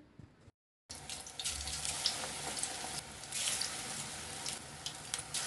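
Besan-battered bread fingers frying in hot oil: a steady sizzling hiss with small crackles. It starts after a brief silence just under a second in.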